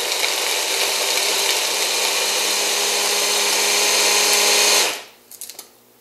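Stick blender with a chopper bowl attachment running on high, grinding macadamia nuts, breadcrumbs and oil into a crumb crust; the motor cuts off about five seconds in, followed by a few light clicks of the bowl being handled.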